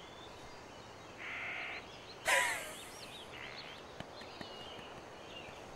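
A crow cawing twice, the second caw louder and falling in pitch, about a second apart; faint chirps of small birds follow.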